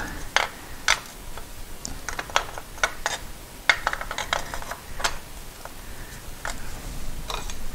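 A string of irregular light clicks and ticks from small metal hardware, a nut and bolt, being handled.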